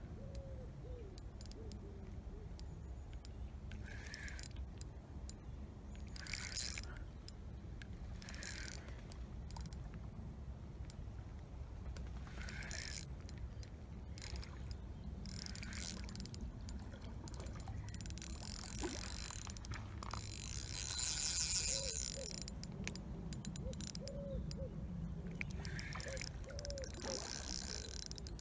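A rod and reel playing a hooked carp: the reel's clutch ticks in short bursts as the fish takes line, with the longest, loudest run about two-thirds of the way through, over a steady low rumble.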